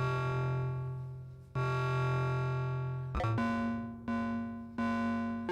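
Buchla Music Easel complex oscillator playing a run of synth notes through a low pass gate, each note starting sharply and then fading. The pitch jumps at random steps set by a random voltage: two lower notes, then a quicker string of higher ones about three seconds in.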